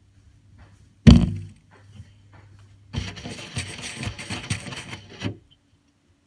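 A hard knock on the phone about a second in, then close rustling and scraping against its microphone for about two seconds, stopping suddenly.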